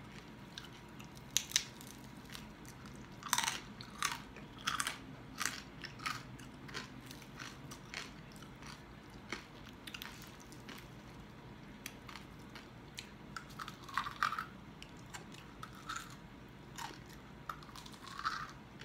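Crispy deep-fried pork hock skin (lechon kawali) crackling as it is pulled apart by hand and chewed, close to the microphone: scattered sharp crunches, the loudest a little after 3 s and around 14 s in.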